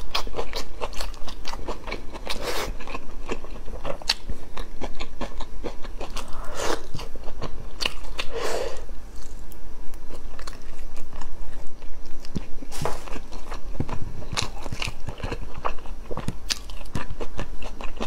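Close-miked mukbang eating: a person biting and chewing braised meat and glass noodles, with dense, irregular wet clicks and some crunching.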